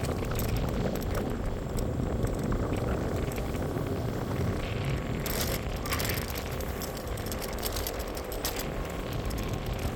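Electric scooter ride: a steady low rumble of wind and road noise, with small rattles and clicks, and a brief louder hiss about five seconds in.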